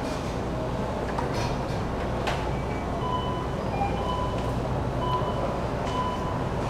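Steady low rumble and hum of background noise, with a short electronic beep repeating about once a second from about three seconds in.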